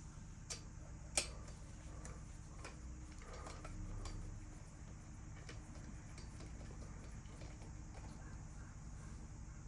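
Light metal clicks and clinks of a tool working on a BMX stem and its headset top-cap bolt, with one sharp click about a second in and a smaller one just before it, over a faint steady hum.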